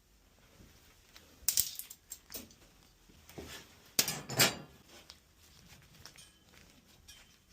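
Scattered metallic clinks and knocks from handling tools and BX armoured cable, with a few louder clatters about a second and a half in and around four seconds in.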